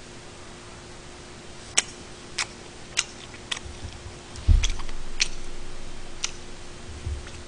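Eating noises close to the microphone: a scattering of sharp clicks, about seven over several seconds, and one dull low thump about halfway through, over a faint steady hum.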